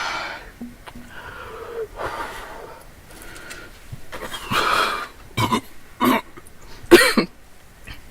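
A person coughing: several short coughs in quick succession in the second half, the loudest about seven seconds in, with softer throat sounds before them.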